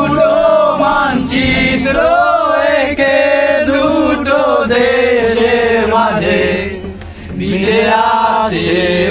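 A group of men singing together in chorus, with a brief break about seven seconds in, over a steady low rumble.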